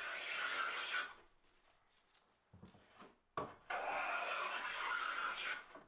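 Record No. 5 jack plane cutting shavings from the edge of a board: one stroke ends about a second in, and a second long stroke runs from just before the four-second mark to near the end, with a couple of light knocks between them. The freshly restored plane is taking a really nice shaving.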